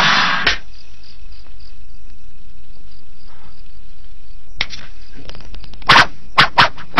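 Film sound effects of arrows: a loud rushing swish at the start, then crickets chirping over a low hum, then a quick run of five or six sharp arrow strikes about six seconds in.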